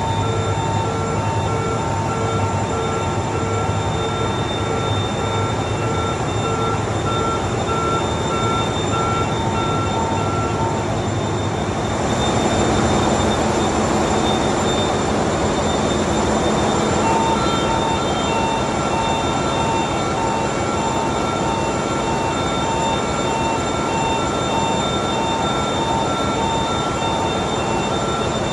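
Drillship engine-room machinery running: a loud, steady drone with several constant whining tones over it. For about five seconds, starting about twelve seconds in, the whining tones fade and a louder, rougher rushing noise takes over, then the tones return.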